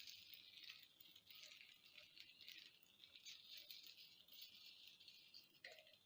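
Faint sizzling of an egg-and-noodle omelette frying in butter in a pan.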